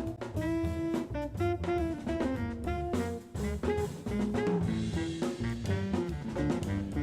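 Jazz band playing: a melody line of held notes over drums and a walking bass.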